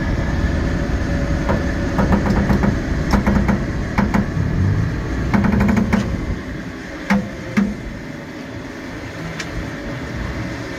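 Heavy excavator diesel engine running under load, with several short bursts of rapid metallic clattering. The engine noise drops off about two-thirds of the way through, leaving a few single knocks.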